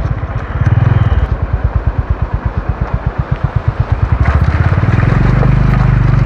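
Honda CB350's single-cylinder four-stroke engine pulling at low revs, its separate firing beats about ten a second. From about five seconds in it settles into a steadier, smoother hum.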